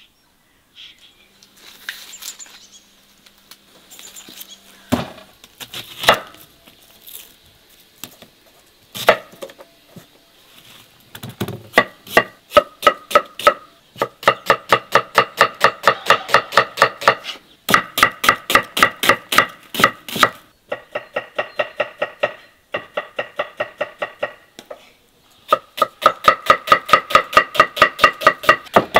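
A knife chopping rapidly on a cutting board, in long runs of about five or six even strikes a second with short pauses between runs. Before it come a few scattered knocks and handling sounds as the food is set up.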